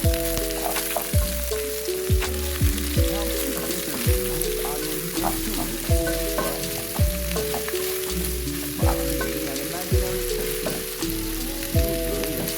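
Background instrumental music: soft sustained chords that change about once a second over a kick-drum and bass beat, with a steady crackling hiss underneath.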